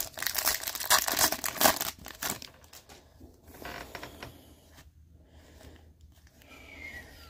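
Foil wrapper of a Topps baseball card pack being torn open and crinkled, a loud crackle for about two and a half seconds, followed by softer rustling as the stack of cards is handled and sorted.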